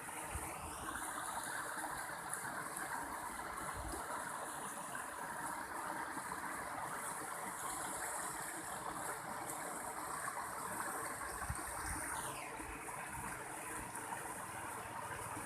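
Mountain stream water running and splashing steadily, an even rushing with no breaks.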